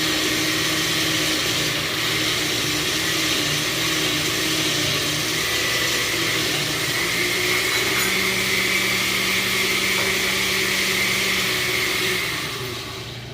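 Countertop electric blender running steadily, liquefying chopped lemon, onion, carrot and garlic in water, with a constant motor whir and a faint high whine. The motor winds down near the end.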